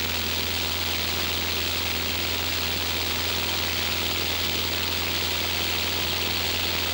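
Steady cabin noise of a Cessna's single piston engine and propeller running at an even speed, heard inside the cockpit: a constant low hum under a broad rushing noise.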